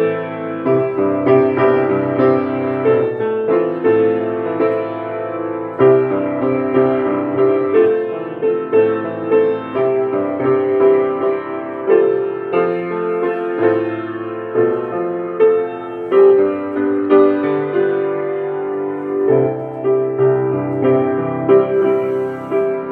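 Piano played by an adult beginner: a slow melody of single notes, about one or two a second, over lower bass notes.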